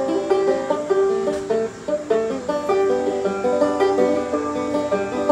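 Banjo being picked, a quick run of plucked notes ringing one after another.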